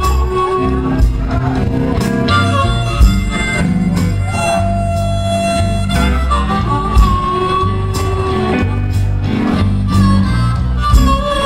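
Live blues-rock band playing an instrumental passage of a slow blues, a lead line of long held notes over bass and drums.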